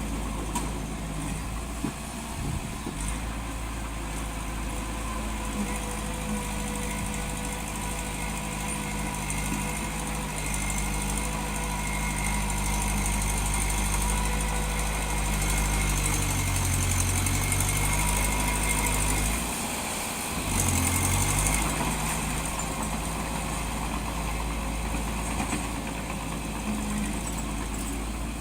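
Diesel engine of a construction machine running steadily. It works harder and louder in the middle, dips briefly at about two-thirds of the way, then surges again.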